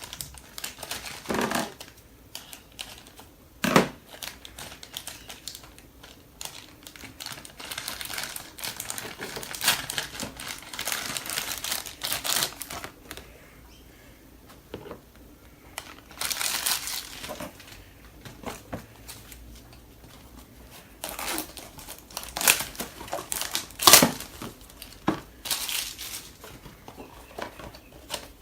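Toy blind-box packaging crinkling and rustling in irregular bursts as it is handled and opened by hand, with a few sharp clicks.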